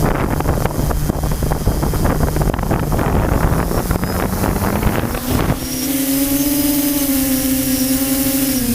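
Small motor of an aircraft being flown in gusty wind: a low motor tone under wind rumble on the microphone, then about five seconds in a louder, steady whine at a higher pitch that sags slightly near the end.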